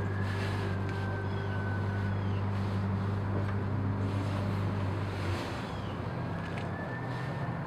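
A steady low motor hum that weakens and changes pitch about five seconds in, with faint higher gliding tones above it.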